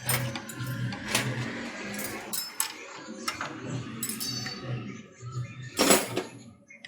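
Metal tools and motorcycle parts clinking and clattering in a string of sharp clicks, the loudest about six seconds in, over background music.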